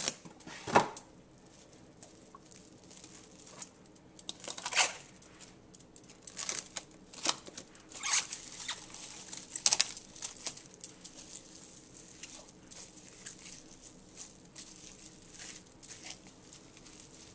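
Glad ClingWrap plastic film being pulled, torn and stretched over a plastic bowl, in scattered bursts of crackling and crinkling as it is pressed down around the rim. A knock about a second in.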